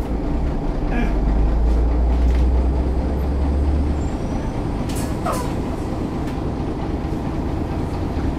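Büssing DE double-decker bus running, its deep diesel engine drone strong for the first four seconds and then easing off. A short falling squeal comes a little after five seconds in.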